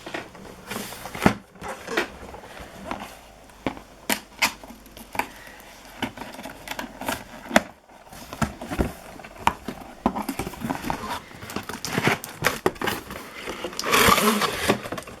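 A toy cash register's cardboard box being opened and its packaging handled: a run of irregular clicks, knocks and crackly rustles of cardboard and plastic, with a longer, denser rustle near the end.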